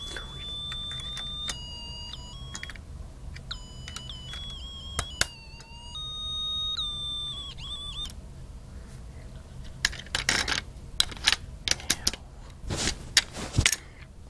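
Snap Circuits music IC playing an electronic tune of plain beeping notes that step up and down in pitch, stopping about eight seconds in. Near the end, a run of sharp clicks and knocks from the kit's plastic parts being handled.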